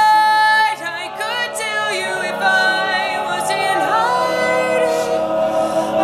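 An all-male a cappella group singing in close harmony with no instruments. A lead voice holds a high note that ends just under a second in, and the backing voices go on with sustained chords and some sliding notes.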